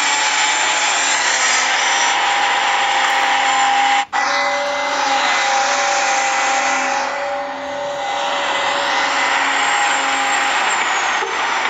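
Small electric motors of a remote-control miniature excavator running with a steady whine over a hiss, with a brief break about four seconds in.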